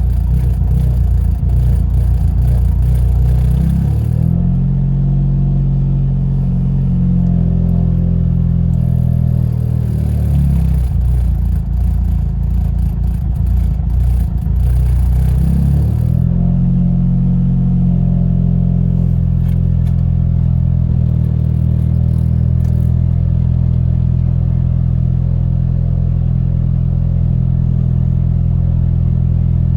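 Ford Focus RS's 2.3-litre EcoBoost four-cylinder running at idle, with its engine speed shifting about 4, 10 and 16 seconds in and some light clicking in the first and middle stretches. The idle is being watched for the dips blamed on a faulty purge valve, just after a new valve was fitted and the ECU reset.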